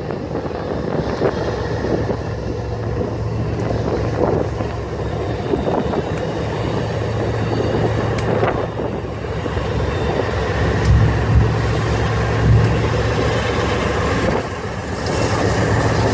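BNSF diesel locomotives running as they approach and pass close by, a steady low engine drone that grows louder as the lead units come alongside.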